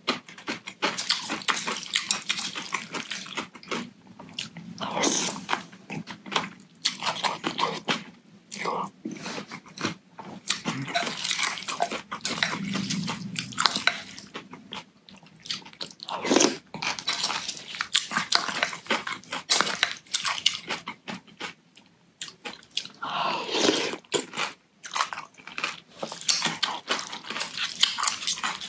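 Close-miked eating of naengmyeon, Korean cold noodles in broth: irregular slurps and chewing with some crunching, a few louder slurps standing out.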